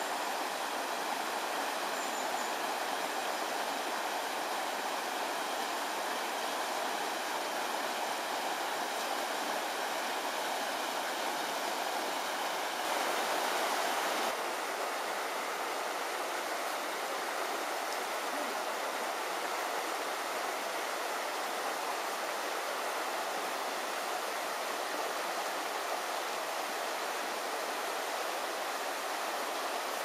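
Steady rushing of a mountain river flowing over rocks, swelling a little for about a second partway through.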